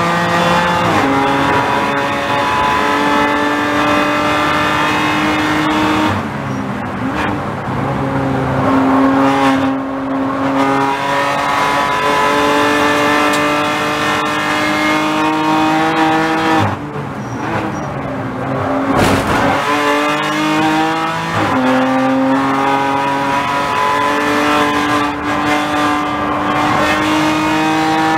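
BMW M4 GT4 race car's twin-turbocharged straight-six engine at full speed, heard from inside the cockpit. The engine note climbs steadily through the revs and drops at each gear change, several times. Past the middle it eases off briefly under braking, then pulls hard again.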